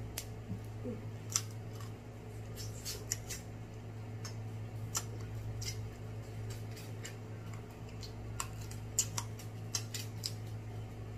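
Snow crab leg shells being cracked and picked apart: irregular sharp clicks and snaps, several in quick succession at times, over a steady low hum.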